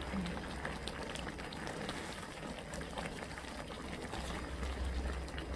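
A pot of liquid bubbling at a boil, with a dense crackle of small pops over a steady low hum.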